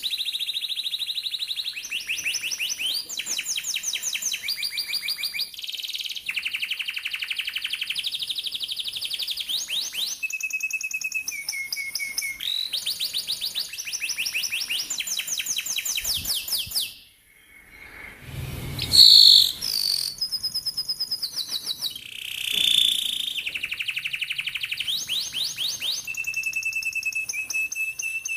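Domestic canary singing a long song of fast trilled rolls, each phrase a quick run of repeated notes that changes every second or two. About two-thirds through the song breaks off for a moment and a short thump, the loudest sound here, comes before the trills resume.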